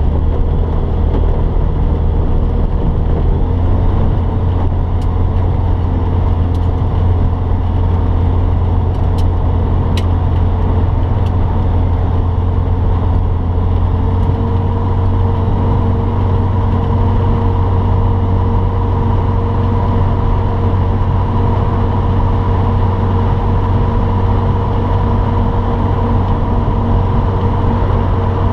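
Light aircraft's propeller engine running steadily at low power while taxiing, heard from inside the cockpit as a constant low drone. A steady higher tone in the drone grows stronger about halfway through.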